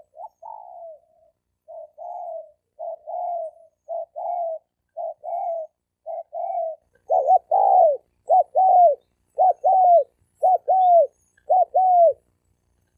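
Spotted dove cooing: a run of short, low coos about one a second. From about halfway they grow louder and each phrase becomes two quick notes that drop in pitch at the end.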